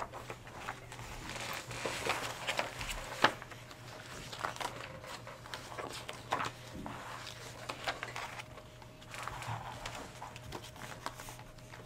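Paperback book pages being turned and handled by several children, a scatter of soft paper rustles and small taps on the table, over a faint steady hum.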